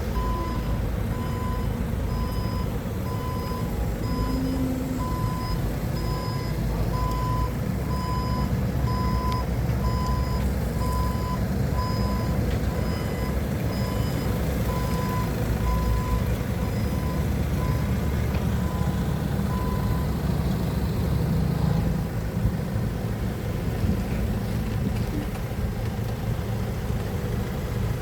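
Forklift engine running steadily while its reversing alarm beeps about once a second, a sign the forklift is backing up. The beeping stops about twenty seconds in and the engine runs on.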